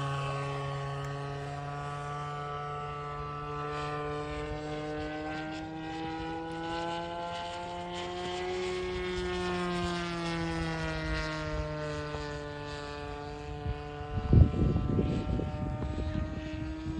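Radio-controlled model airplane's motor and propeller droning in flight, the pitch sliding down, rising again midway and falling as the plane flies past and circles. A loud rumbling burst of noise cuts in about three quarters of the way through.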